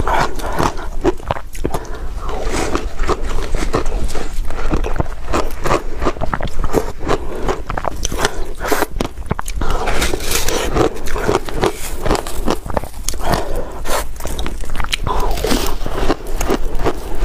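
Close-miked crunching of soft frozen ice: a snow-like block is pressed and scooped through passion fruit pulp, then bitten and chewed. It is a dense, irregular run of crackles and crunches.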